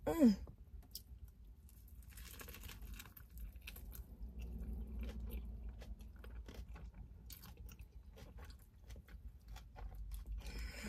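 A person chewing a mouthful of soft-shell crab hand roll wrapped in nori, close to the microphone, with many small crisp crunches.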